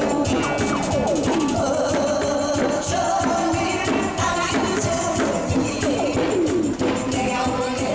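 A woman singing a Korean folk-style song into a microphone over amplified backing music with a steady beat of drums and jingling percussion.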